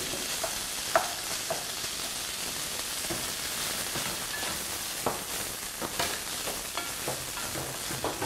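Rice and softened onions sautéing in melting butter in a non-stick pan, a steady sizzle while a wooden spatula stirs, with a few sharp knocks and scrapes of the spatula against the pan.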